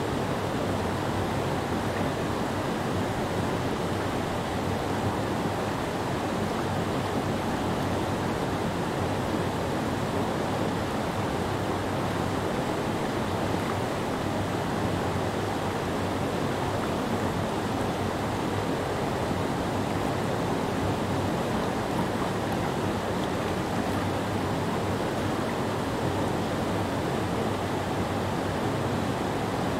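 Steady rushing of whitewater on Silver Creek, pouring over a low rock ledge and churning in the pool below. It is an even, unbroken roar, strongest in the low and middle range, with no separate splashes standing out.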